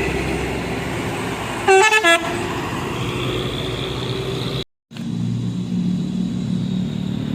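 Two short toots of a telolet horn, a musical multi-tone truck horn, about two seconds in, over steady truck engine and traffic noise. The sound drops out briefly about two-thirds of the way through, then a truck engine carries on running low and steady.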